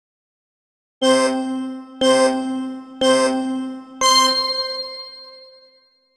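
Interval timer's countdown signal for the end of a work round: three ding tones a second apart, then a fourth, higher-sounding ding that rings out for about two seconds as the work interval ends and rest begins.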